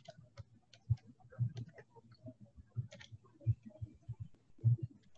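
Computer mouse clicking at an irregular pace, many short clicks, some with a dull low knock.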